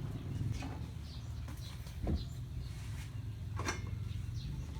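Kitchen tongs lifting sterilized feeding-bottle parts out of the sterilizer pot: light clicks and knocks, with two sharper knocks, about two seconds in and again a second and a half later, over a low background rumble.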